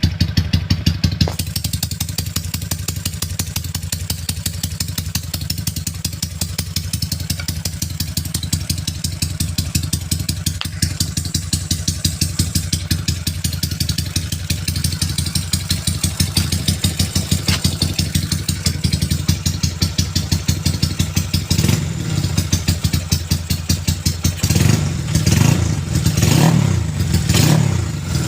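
Honda Wave 125 single-cylinder four-stroke motorcycle running with a gruff, loud exhaust note, idling with an even pulsing beat. Near the end the throttle is blipped several times in quick succession.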